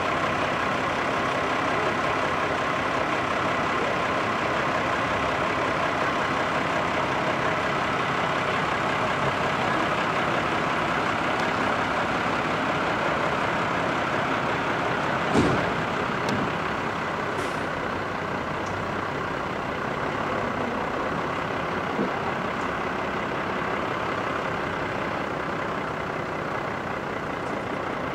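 Steady engine drone of a heavy road vehicle, with a faint steady whine in it. A sharp knock stands out about fifteen seconds in, and a lighter one a few seconds later.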